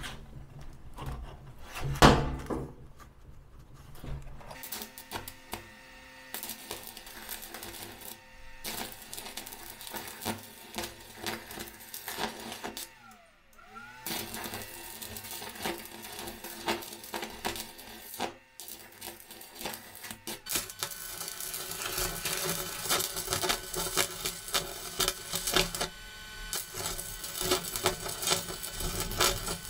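Arc welder running with a length of rebar clamped in the electrode holder in place of a welding rod: the arc crackles and sputters unevenly, growing louder after about twenty seconds. A sharp knock about two seconds in.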